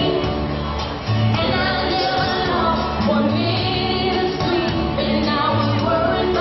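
A song with singing over a steady, repeating bass beat.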